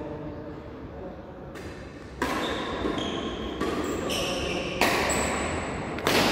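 Badminton rally: rackets striking the shuttlecock, about six sharp cracks from a second and a half in, half a second to a second apart. Short high squeaks in between come from shoe soles on the court.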